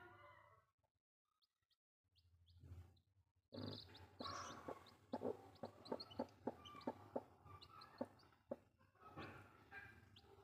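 Newly hatched chicks peeping faintly in short high notes, nestled under a brooding hen. A quick run of small clicks and rustles comes in the middle.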